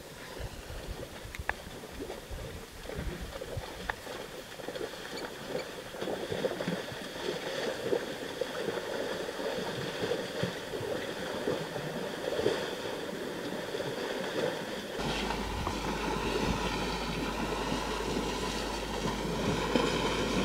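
African elephants wading and bathing in a shallow waterhole, water sloshing and splashing continuously. About fifteen seconds in, a steady low hum starts, with a wavering high-pitched sound above it.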